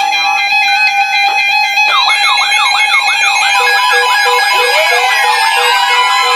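Several weather alert radios sounding their warning alarms at once. Steady electronic tones are joined about two seconds in by a warbling siren-like alarm that sweeps down about twice a second. Then come an on-off beep, a steady tone near 1 kHz, and long rising and falling pitch glides.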